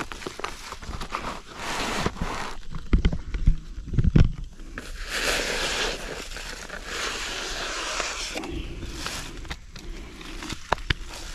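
Footsteps crunching and rustling through woodland brush and dry leaves, with irregular twig cracks and knocks underfoot and stretches of brushing through vegetation.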